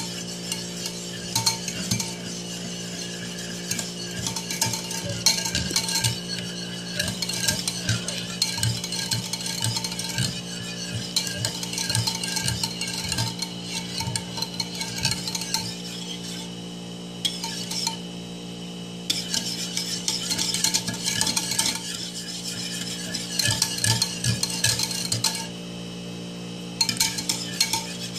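Wire whisk beating cream by hand in a ceramic bowl: rapid strokes, the wires scraping and clinking against the bowl's sides as the cream is whipped until it thickens. The whisking stops briefly twice in the second half, with a steady low hum underneath.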